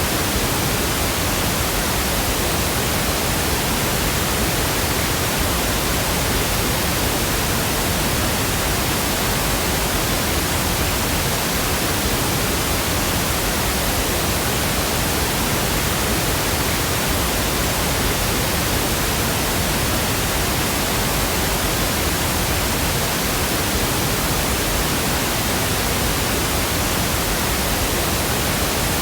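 Steady pink noise: an even, unbroken hiss at a constant level.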